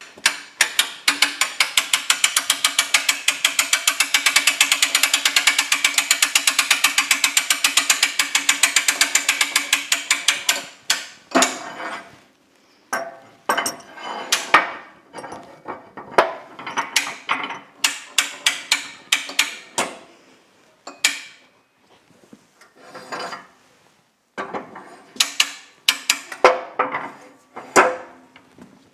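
Fast, even ratchet clicking for about the first eleven seconds, then scattered metal clanks and knocks from steel parts and tooling being handled.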